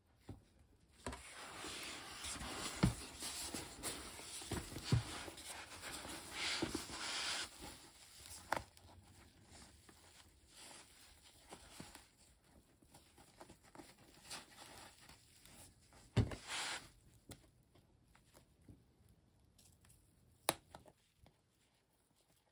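Hands working the thick vinyl and interfaced layers of a bag seam: rustling, crinkling and rubbing as the seam allowances are folded and pinched, busiest in the first several seconds and then softer, with a few sharp taps later on.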